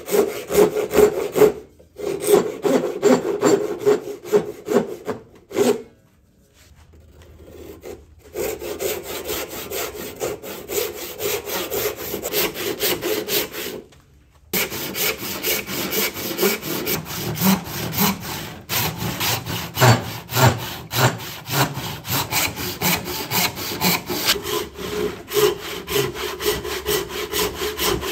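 Hand saws ripping walnut by hand, steady push-and-pull strokes rasping through the wood. There is a quieter lull of about two seconds a quarter of the way in and a brief break about halfway, after which the sawing continues with a full-size handsaw.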